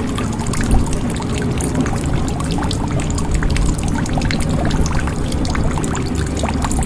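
Water pouring into a jug: a steady splashing stream with many small drops and short gurgling notes.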